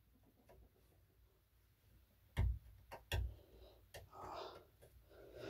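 Near silence, then a few soft thumps and clicks about halfway through, with a faint rustle shortly after.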